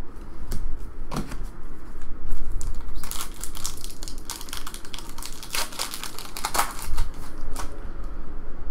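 Crinkling and tearing of a foil trading-card pack wrapper being opened and handled, loudest in the middle stretch, with light clicks of cards being handled before it.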